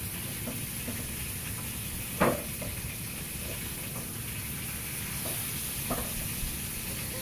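Meat sizzling in a hot frying pan, a steady hiss, with a few sharp clinks of metal tongs against the pan as the meat is turned, the loudest about two seconds in.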